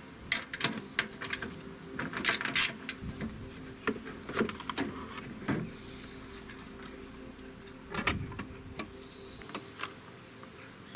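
Irregular clicks, knocks and rustles of gloved hands working in a car engine bay, shifting the plastic coolant reservoir and hoses aside to fit a replacement starter motor, over a faint steady hum.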